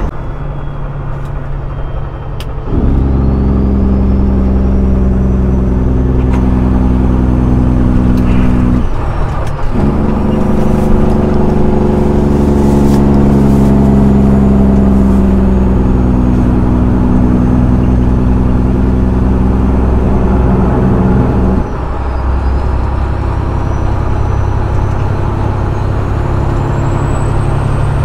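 Peterbilt 389 semi truck's diesel engine brake (jake brake) cutting in abruptly about three seconds in, a loud steady-pitched engine sound slowing the truck. It drops out briefly about nine seconds in, resumes, and switches off abruptly near the end, leaving the lower drone of the engine and road noise.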